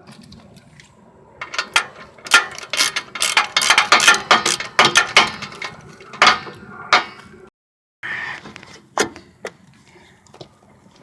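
Hand ratchet wrench clicking in quick strokes while a bolt is turned during brake reassembly. It breaks off abruptly about two-thirds of the way in, then comes back as a few scattered clicks.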